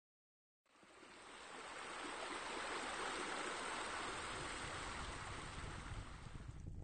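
A steady rush of running water, like a stream, fading in after a moment of silence and thinning out near the end.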